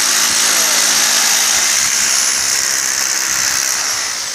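Power drill running steadily, boring holes in stone.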